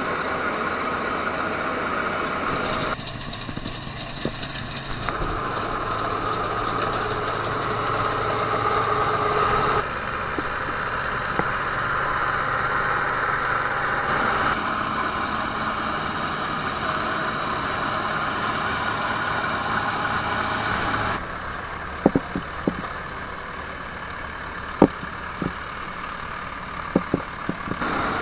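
Diesel engines of a Bizon combine harvester and Ursus tractors running steadily, in several clips cut one after another so the engine sound changes abruptly about every few seconds. In the last several seconds a quieter engine runs with scattered sharp knocks.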